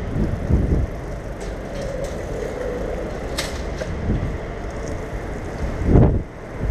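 Riding noise from a bicycle moving over wet paving: low rumble from the tyres and wind on the microphone, swelling in gusts, loudest near the end. A single sharp click just past halfway through.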